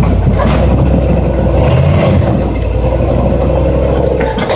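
Off-road rock-crawling vehicle's engine running under load with a deep, steady rumble, and a sharp knock near the end.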